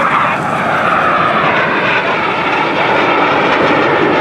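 Aermacchi MB-339 PAN jet trainer flying a display manoeuvre, its Rolls-Royce Viper turbojet heard as a loud, steady rushing jet noise.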